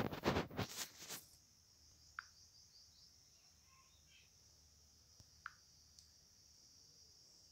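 A loud rough burst of noise lasting about a second at the start, then two faint short clicks about two and five and a half seconds in, over a steady faint high hiss. The clicks are a smartphone's touch-screen tap sounds as the app's screens are tapped.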